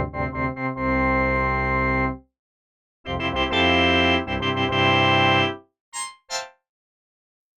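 Polyphonic Prophet-5 synthesizer patch playing held, organ-like chords. After a break of about a second, a second chord passage follows, then two short stabs near the end.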